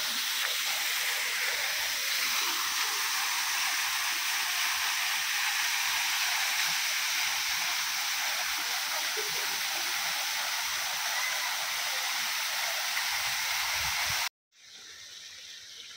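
Waterfall cascading down a rock face into a pool: a steady rushing of falling water. Near the end it cuts off abruptly and a much fainter hiss follows.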